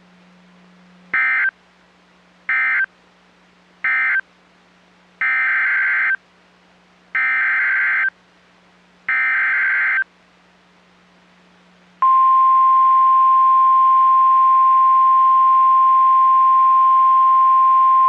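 NOAA Weather Radio Emergency Alert System tones: three short SAME data bursts, the end-of-message code closing the severe thunderstorm warning. Then come three longer data bursts, the SAME header for the next warning, each a buzzy rattle of digital tones. About twelve seconds in, the steady 1050 Hz weather radio warning alarm tone starts and holds, louder than the bursts.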